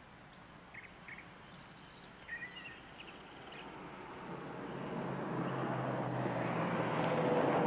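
Outdoor background with a few faint, short bird chirps, then a rushing noise that swells steadily louder over the last few seconds.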